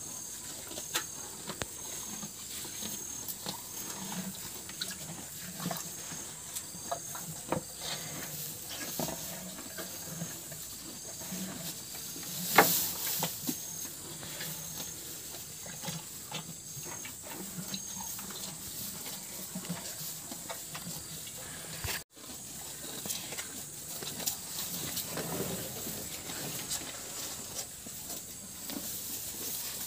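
Cattle eating cut grass: tearing and chewing with rustling stalks and many small crunches, and one louder crackle about twelve seconds in.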